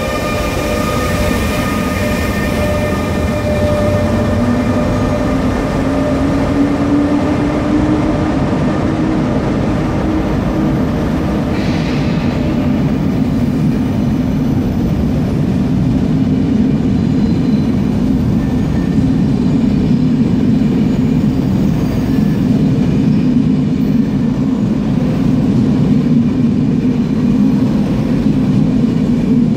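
ÖBB Taurus electric locomotive's traction converter tones, a set of steady high notes that fade out over the first few seconds while a lower hum glides upward in pitch. After that, the steady low rumble of the Railjet train's wheels rolling on the rails.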